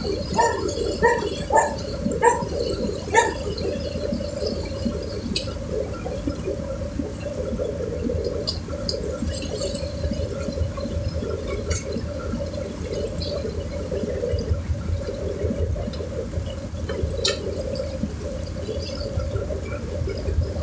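Steady churning and sloshing of river water with a low rumble beneath it, alongside a large container ship passing close by. A quick run of about six short, high, chirping notes sounds in the first few seconds.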